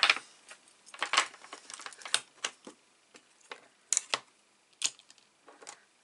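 Irregular light clicks and taps of card stock and clear acrylic stamp blocks being handled on a craft desk, about a dozen scattered through, the sharpest ones about a second, two seconds and four seconds in.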